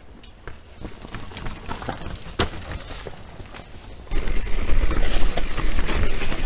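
Mountain bike rolling down a rocky singletrack toward the microphone: tyres crunching and clicking over loose stones, growing slowly louder. About four seconds in it switches abruptly to much louder, steady rushing trail noise.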